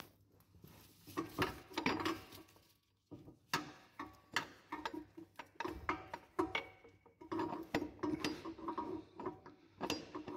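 Metal-on-metal clicks and knocks, irregular and several a second, as a Mini Cooper R56 driveshaft's splined end is worked against the differential to seat it in the transmission. There is a short lull about three seconds in. The shaft is not going in: from under the car there is not enough purchase to push it home.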